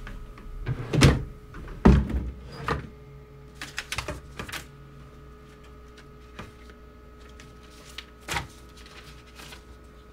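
Papers being rifled through in an open wooden desk drawer, with a series of knocks and thuds from the drawer and desk, the loudest two in the first two seconds and another near the end.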